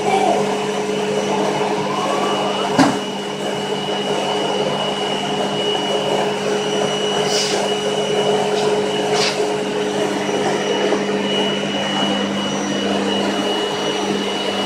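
Vacuum cleaner running steadily, a motor hum with a thin high whine, with one sharp knock about three seconds in.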